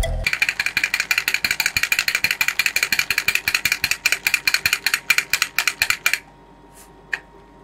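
Toy drumming bunny beating its sticks on a small plastic drum: a fast, even clatter of taps, about ten or more a second, that stops about six seconds in. A single click follows about a second later.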